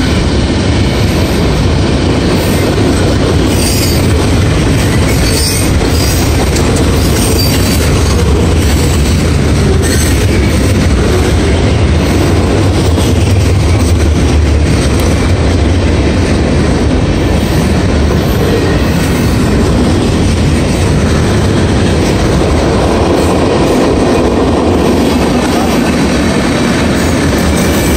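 Freight cars of a Norfolk Southern mixed manifest train rolling past at a grade crossing: a loud, steady rumble of steel wheels on the rails that is heaviest in the low end.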